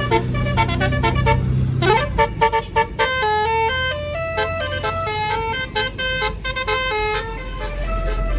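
Tour bus's Basuri 'telolet' melody horn playing a tune: quick short notes at first, then a brief rising glide about two seconds in and a slower run of held notes, over the bus's engine running.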